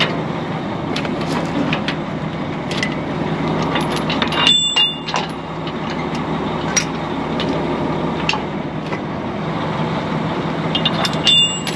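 Kenworth dump truck's diesel engine idling steadily, with scattered light clicks and knocks and two brief high squeaks, one about four and a half seconds in and one near the end.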